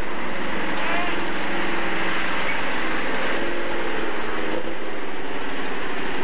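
Off-road vehicle engine running steadily under a constant rushing noise.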